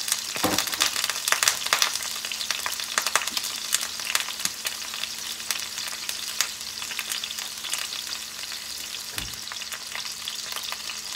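Chicken drumsticks frying in hot oil in a stainless steel skillet, sizzling with a steady crackle of pops that is busiest in the first couple of seconds. The popping comes from water left on the undried chicken spattering in the oil.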